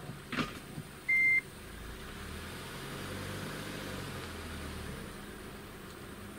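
A single short, high electronic beep about a second in, followed by a low engine rumble from a vehicle that swells for a few seconds and then eases off.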